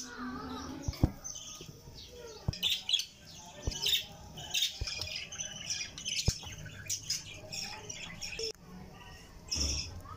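Ceramic cups set down one by one on a metal tray, a few sharp clinks spread over several seconds, while birds chirp and squawk in the background.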